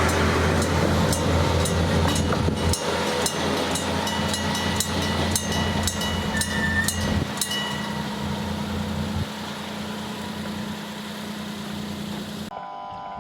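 Kominato Railway diesel railcar passing a level crossing and moving away: a low engine drone that drops off about three seconds in, with a regular sharp clicking about twice a second that stops about seven seconds in, then a steady fading rumble.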